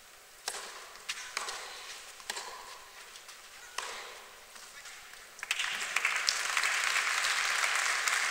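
Tennis balls struck by racquets in a rally on clay: a serve, then several sharp hits about a second or more apart. About five and a half seconds in, the crowd breaks into applause as the point ends, louder than the hits.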